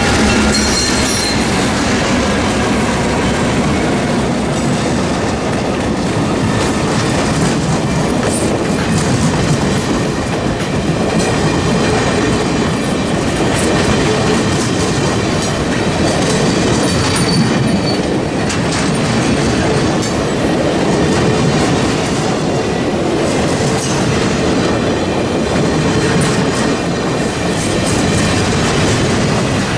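Passenger train passing close by a grade crossing. The lead diesel locomotive goes by at the start, then a long line of stainless-steel passenger cars rolls past with a steady loud rumble and the clickety-clack of wheels over rail joints.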